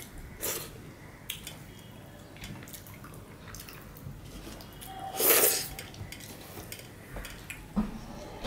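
Fingers scraping across a stainless steel plate, gathering up the last of the curry, in short wet strokes. A louder wet burst comes about five seconds in.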